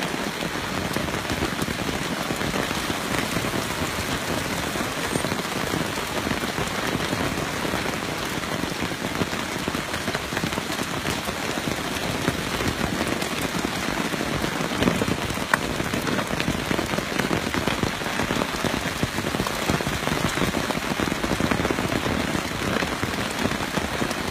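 Steady, even rush of a flood-swollen creek running high, mixed with falling rain.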